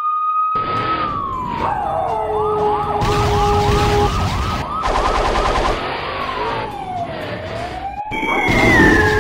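Cartoon sound effects for an animated police monster truck: a siren-like wail that slides down in pitch and back up, with a fast warbling yelp for a couple of seconds near the middle, over a steady low rumble.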